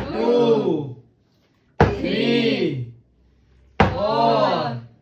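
Three alike bursts about two seconds apart, each a sharp thunk followed by about a second of a voice-like exclamation.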